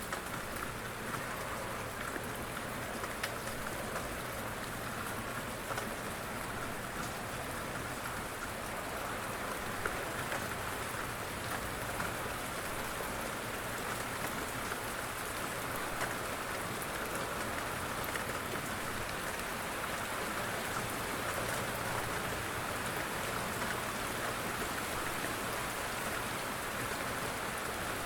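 Steady light rain falling, an even hiss with scattered individual drops ticking.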